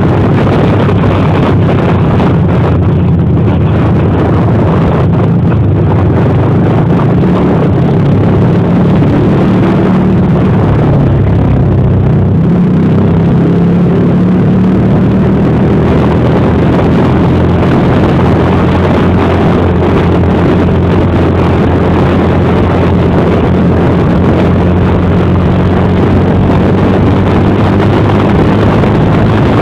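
Motorcycle engine running at a steady cruising speed under way, with wind buffeting the microphone.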